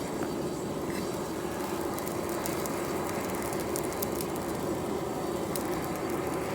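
Charcoal forge fire burning steadily: an even rushing noise with a constant low hum and scattered faint crackles.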